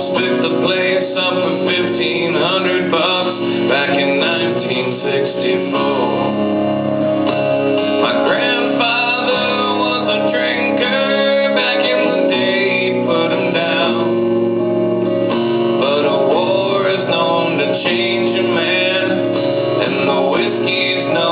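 A band playing a country song on guitars, with a man singing, loud and continuous.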